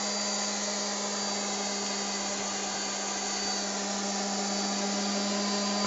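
A woodworking machine's electric motor runs steadily at constant speed, with a low hum and a faint high whine.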